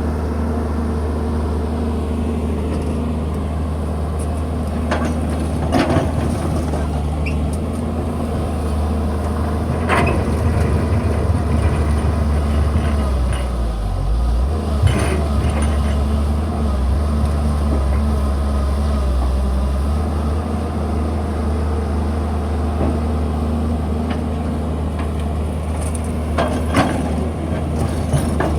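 Excavator's diesel engine running steadily under work, with a few sharp knocks and clanks scattered through.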